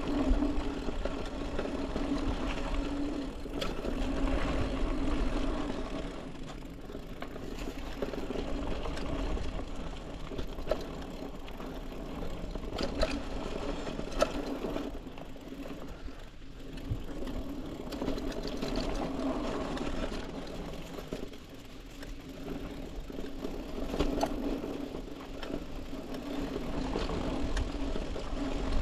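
Hardtail mountain bike, a Trek Marlin 6, rolling over a dirt singletrack: a steady whirring buzz that swells and fades, with scattered clicks and knocks over bumps.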